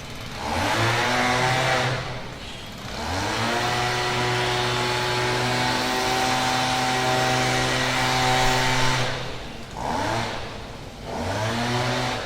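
Chainsaw engine revved up and let back to idle several times: a short rev, then a long rev held high for about six seconds, then two more short revs near the end.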